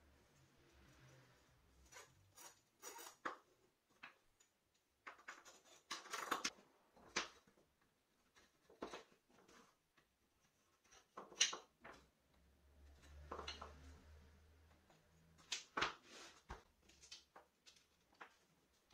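Short wooden pieces of broom handle knocking and clacking against one another and on a tabletop as they are slid onto a threaded metal rod: scattered, irregular knocks and clicks.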